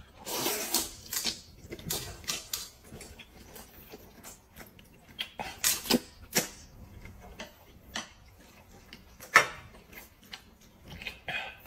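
A person slurping and chewing a mouthful of noodles, with a breathy slurp in the first second or so, then short, sharp clicks and smacks scattered through the rest.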